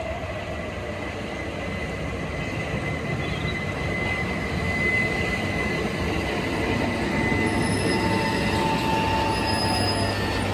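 Southeastern electric multiple-unit train running on the rails, a steady rumble of wheels with a high, held wheel squeal; a second, lower squeal tone joins about three quarters of the way through as the sound grows slightly louder.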